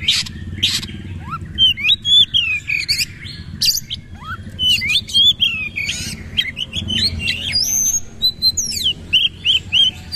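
Oriental magpie-robin (kacer) singing hard: a fast, varied run of loud whistled notes, rising and falling glides and sharp harsh notes, the rapid 'nembak' song that kacer keepers prize.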